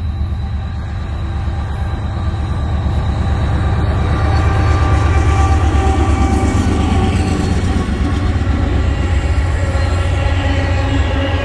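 Norfolk Southern diesel locomotives hauling an oil train pass close by, their engines loudest about halfway through, then loaded tank cars roll past with steady wheel squeal.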